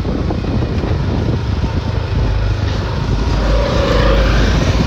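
Engine and road noise of a moving two-wheeler heard from the pillion seat, with a rough low rumble of wind on the microphone that grows louder about two seconds in.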